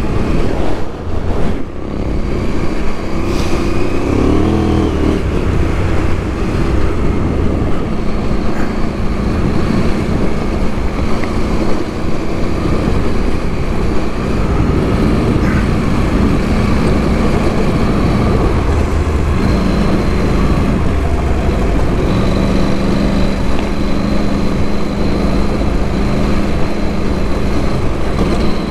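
KTM adventure motorcycle's engine running under way, its pitch shifting up and down with throttle and gear changes, with a brief rise about four seconds in.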